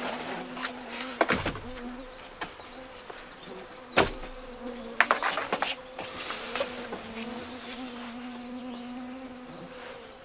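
A flying insect buzzing with a hum that wavers and comes and goes, with a few sharp knocks and a clatter about one, four and five seconds in as a plastic bucket is handled and set down on a wooden table.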